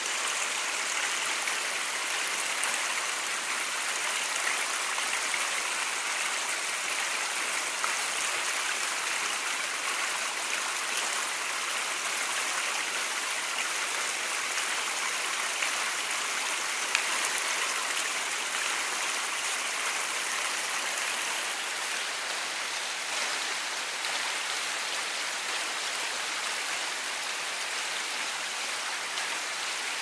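Small mountain stream spilling over a little waterfall among stones: a steady, even splashing rush of water, bright and hissy with little low rumble.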